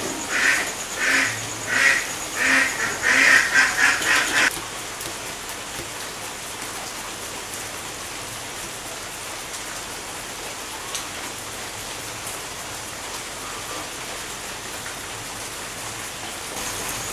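A duck quacking over and over, about seven calls at roughly one and a half a second, which stops abruptly about four seconds in; after that only a steady hiss remains.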